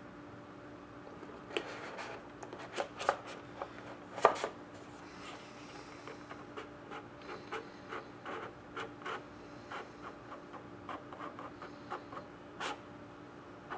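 Trading-card packaging handled by hand: a run of short rubbing, scraping and tapping noises, a few louder knocks early on and then about two small scrapes a second, over a faint steady hum.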